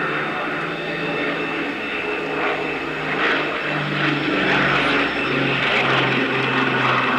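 Avro Shackleton's four Rolls-Royce Griffon piston engines with contra-rotating propellers droning steadily as it flies overhead. The engine note drops a little about five seconds in as it passes.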